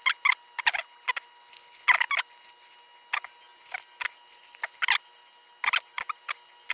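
Leather lace squeaking and rasping against the leather of a Kubota Slugger infielder's glove as it is pulled through the web's lace holes, in short irregular bursts, the loudest about two and five seconds in.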